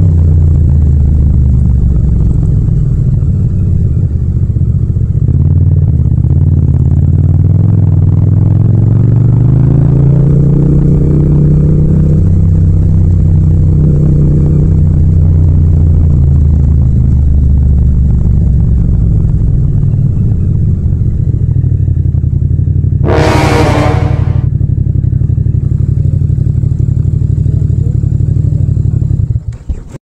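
Yamaha MT-07's 689 cc parallel-twin engine through a Yoshimura exhaust, heard from the rider's seat while riding: its pitch rises under throttle about a third of the way in, then eases back to a steady cruise. About three-quarters of the way through, a brief shrill sound cuts across it.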